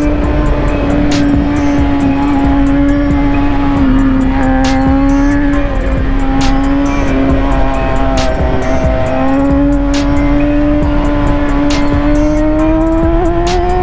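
BMW S1000RR inline-four running at steady high revs through a Racefit exhaust while riding. Its pitch sags a little through the middle and climbs near the end as the throttle opens.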